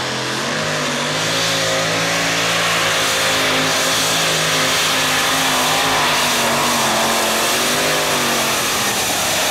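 Supercharged engine of a two-wheel-drive pulling truck at full throttle, hauling a pulling sled. Loud and steady, getting a bit louder about a second in, its pitch wavering slightly up and down under the load.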